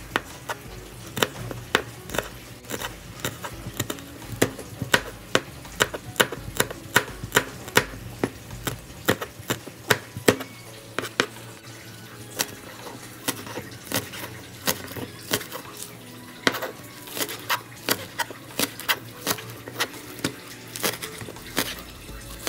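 Repeated sharp clacks of a kitchen utensil working in cookware, irregular, about two to three a second.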